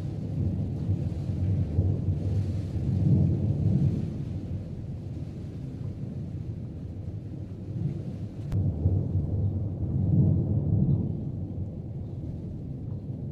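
Thunder rumbling low and long in two swells, one a second or so in and one about eight to eleven seconds in.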